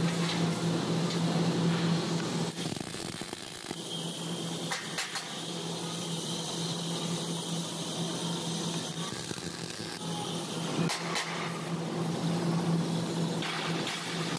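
MIG welding gun tack-welding steel flat bar onto a frame jig: crackling arc hiss in runs, loudest in the first couple of seconds and again near the end, over a steady low hum.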